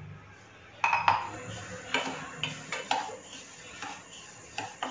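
Wooden spatula stirring semolina as it roasts in a pan: irregular scraping and knocking against the pan, starting about a second in.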